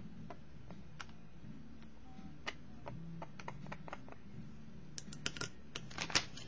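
Scattered small clicks and taps from handling an ink dropper and a sketchbook on a desk, sparse at first, then a quicker, louder cluster about five seconds in, over a faint low hum.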